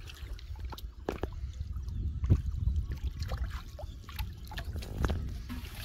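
Splashing in shallow muddy water as fish thrash and a child wades: a string of short splashes, the loudest about two seconds in, over a steady low rumble.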